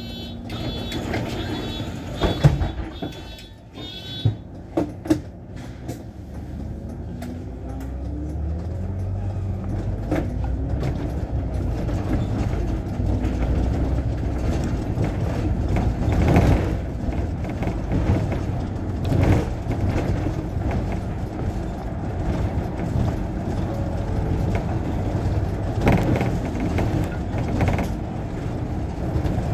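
MAN articulated city bus moving off from a stop. Near the start there are short high beeps and a few sharp knocks. From about seven seconds in, the engine pitch rises again and again as the bus accelerates through its gears, then it settles into a steady running sound with road noise.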